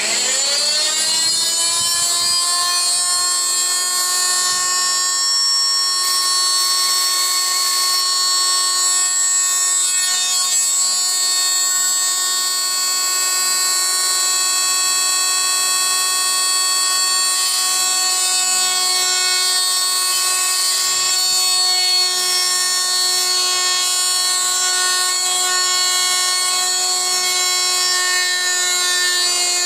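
Fein MultiMaster oscillating multi-tool switching on, getting up to speed within the first second, then running steadily with a high, even buzz as it trims out the radius corners of a routed slot.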